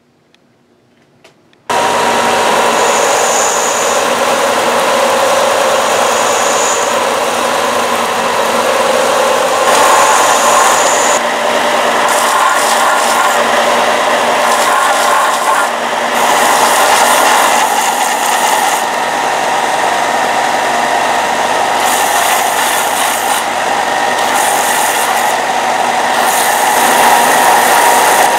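Belt grinder running with a wooden knife handle pressed against its sanding belt, shaping the handle. The grinding starts suddenly about two seconds in and shifts in strength as the pressure on the belt changes.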